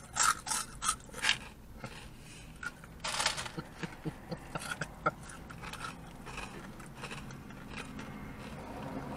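Crispy fried batter bits ('crunchies') being bitten and chewed close to the microphone: bursts of short crunches, mostly in the first half, quieter after about five seconds. A car engine's low rumble grows louder near the end.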